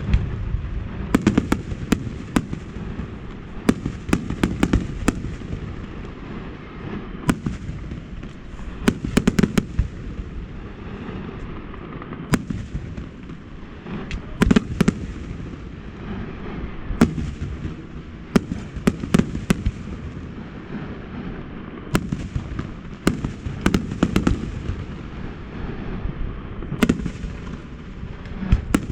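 Fireworks display: clusters of sharp bangs every few seconds, with a low rumble continuing between them.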